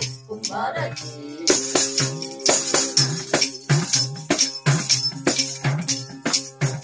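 Tambourine, a metal-rimmed frame drum with jingles, beaten in a steady rhythm of about two strokes a second. Under it runs the steady drone of a tamboori, a gourd-bodied folk drone lute, in an instrumental break of a Kannada folk song.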